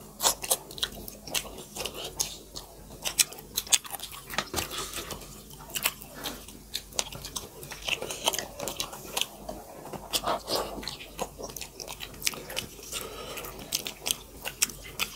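Two people chewing maize-flour dhido and chicken curry, eaten by hand, with many sharp, irregular mouth clicks throughout.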